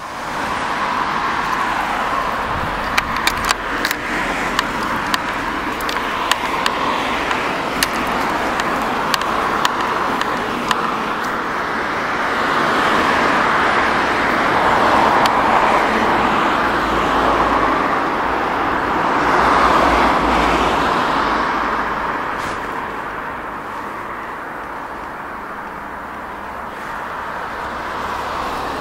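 Road traffic noise: a steady rush of passing cars that swells twice in the middle as vehicles go by, then eases. A few short sharp clicks come in the first third.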